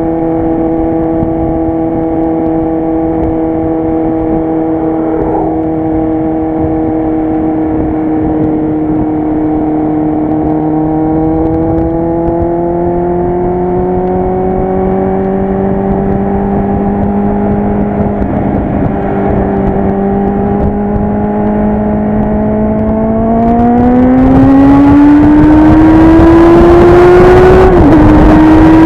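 Kawasaki Z800's inline-four engine through a loud aftermarket exhaust, running at steady revs while riding. Near the end it accelerates, rising in pitch and getting louder, with a brief dip in revs just before the end. Wind noise on the microphone grows as it speeds up.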